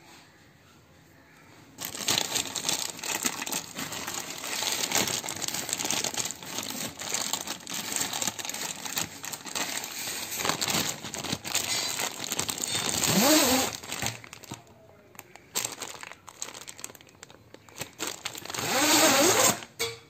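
Plastic packaging crinkling and tearing as a new washing machine drain hose is unwrapped, in uneven bursts of rustling that start about two seconds in.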